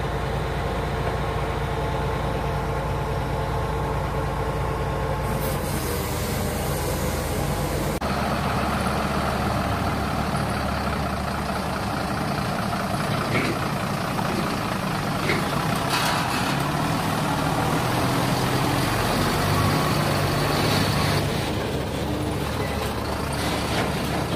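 Heavy diesel engines running. First comes the steady hum of a Tadano TR-500M rough-terrain crane's engine. About eight seconds in it changes to a heavy truck's diesel, which swells near the end and then drops back, with a few short clicks along the way.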